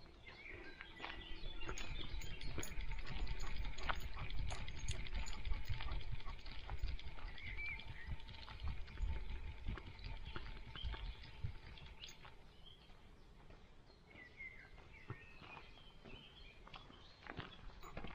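Rustling, scuffing and low thumps of a dog moving over a forest floor, picked up close by a camera strapped to its body. The sound is loudest in the middle stretch and quieter later. Birds chirp a few times faintly in the background.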